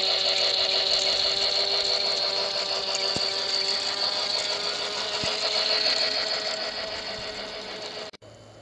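Toy train locomotive's small electric motor and gears whirring steadily as it runs along plastic track. The sound gets quieter toward the end and cuts off suddenly about eight seconds in.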